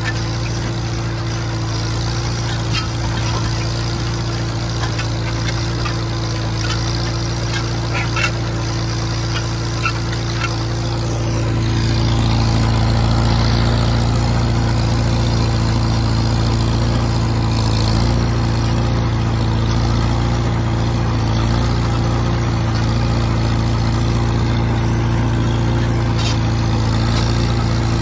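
Farmall H tractor's four-cylinder engine running steadily while pulling a disk harrow, with scattered short clicks and clanks in the first third. The engine gets a little louder about eleven seconds in and holds steady after that.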